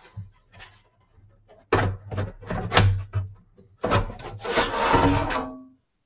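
Outer casing of a Synology DiskStation DS1513+ NAS being slid off its chassis: scraping and rubbing in a few short spells about two seconds in, then one longer spell about four seconds in.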